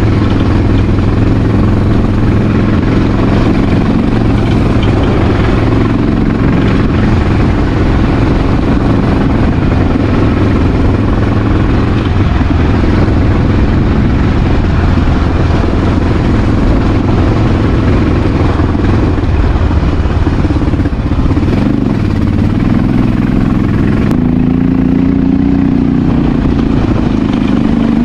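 Honda XR650L's single-cylinder four-stroke engine running steadily under way at a low trail speed. The revs rise a little near the end.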